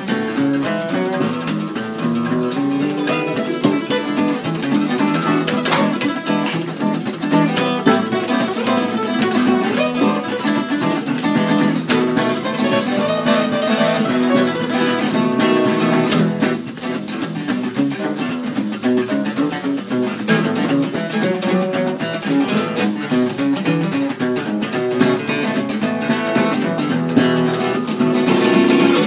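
Acoustic guitar playing a freestyle blues jam, with continuous picked and strummed notes.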